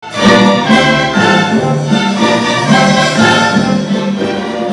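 Youth string orchestra of violins, cellos and double basses playing a classical piece live, with full, sustained chords that change about every half second to second.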